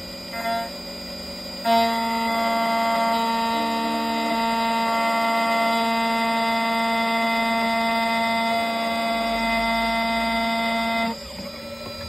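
Key-cutting machine's cutter motor running with a steady electric whine. It switches on about two seconds in and cuts off near the end.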